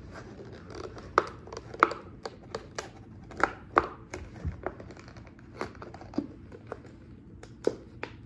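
Scissor points stabbing into a thin plastic bottle to poke holes: an irregular string of sharp plastic clicks, pops and scrapes.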